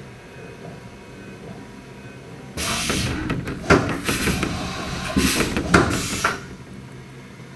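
Haas EC-300 side-mount tool changer cycling: under a steady machine hum, a loud hiss starts a little under three seconds in and runs for about four seconds, with several sharp mechanical clunks before it cuts off.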